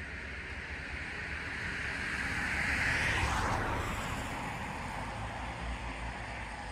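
Rushing noise of a passing vehicle, swelling to a peak about three seconds in and then fading away.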